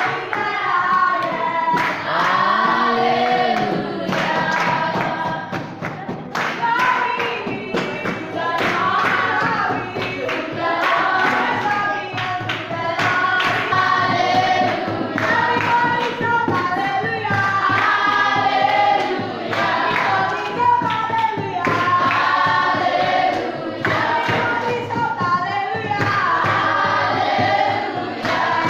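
A group of students singing a gospel praise song together, with hand clapping along to it.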